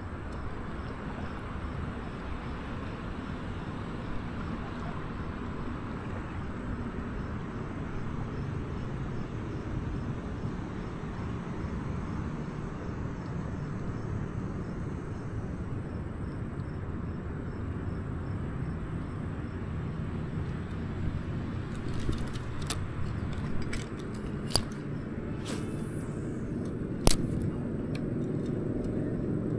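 Steady low outdoor rumble, with a few sharp clicks near the end.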